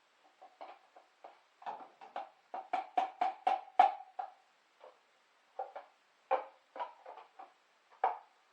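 A run of hollow, ringing knocks and taps, irregular at two to four a second and loudest in a quick cluster a few seconds in.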